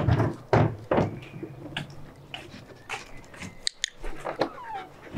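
A dog eating treats snapped up from a hand, with scattered sharp clicks and knocks.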